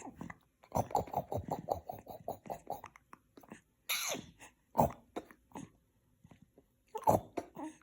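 Four-month-old baby hiccuping: several sudden, sharp hiccups, the loudest about four, five and seven seconds in, after a fast run of softer short sounds in the first few seconds.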